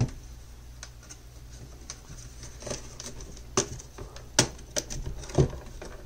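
A handful of sharp, irregularly spaced plastic clicks and knocks from an HP ProBook 450 G1 laptop's plastic case, as the top cover is pried at to free it from its clips.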